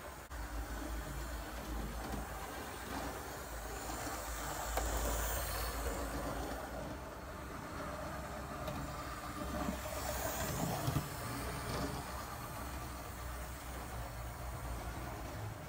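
OO gauge model locomotive running on the test loop: a steady low motor hum and rumble of wheels on the rails, swelling a little twice.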